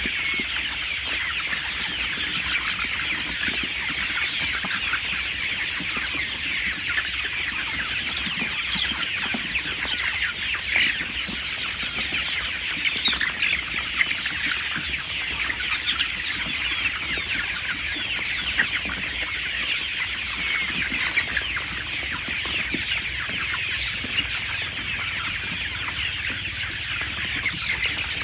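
A flock of 37-day-old chickens peeping and chirping all at once, many short high calls overlapping in a steady din, with a few louder calls now and then.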